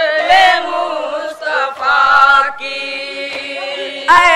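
A group of boys chanting a noha, a mourning lament, in chorus with voices alone, holding one long note in the second half before coming back in louder near the end.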